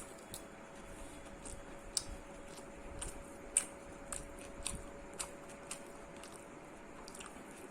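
Close-up mouth sounds of someone chewing chilli chicken and fried rice: soft, irregular wet clicks and smacks, about one to two a second. A faint steady hum runs underneath.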